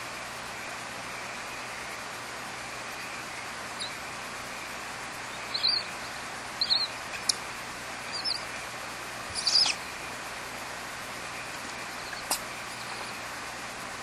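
Barn owl in its nest cavity giving about five short, high chirping calls, a second or so apart, with a couple of sharp clicks, over a steady hiss.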